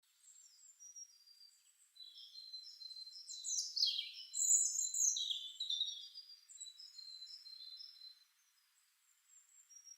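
Small birds chirping and twittering in high whistles and quick falling trills, busiest around the middle and thinning out near the end.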